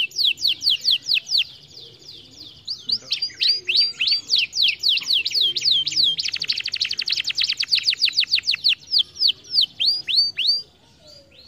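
Domestic canary singing in rapid repeated tours of downward-sweeping notes. There is a short break about two seconds in, then a very fast trill from about six to nine seconds, which slows again before the song stops near the end.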